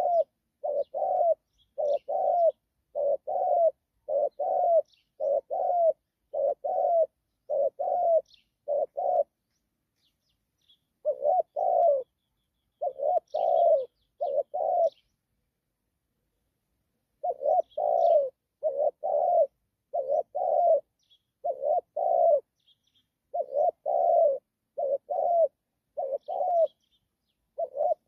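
Spotted dove cooing over and over in runs of short low coos, with two breaks of a second or two, one about a third of the way in and one past the middle. Faint high chirps of small birds sound now and then behind it.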